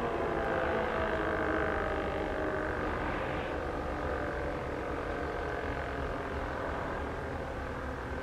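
Elektror L138 electric siren sounding a held tone that slides slightly lower at the start, then stays level while slowly getting quieter, over a low steady rumble.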